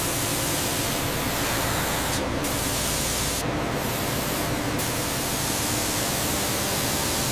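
Coolant spraying inside a CNC milling machine's enclosure: a steady, loud, even hiss with a faint low hum under it.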